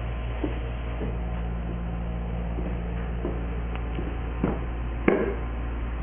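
Scattered light clicks and taps of a puppy's claws on a hardwood floor, with one louder knock about five seconds in, over a steady low hum.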